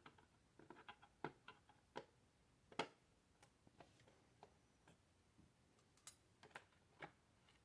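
Faint, irregular clicks and taps of small plastic parts being handled as a Nerf N-Strike Tech Target is taken apart, with the loudest click about three seconds in.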